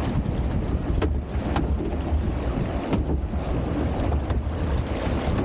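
Water rushing and splashing along a log flume channel around the riding log, with a steady low rumble of wind on the microphone. A few faint sharp clicks or knocks break through now and then.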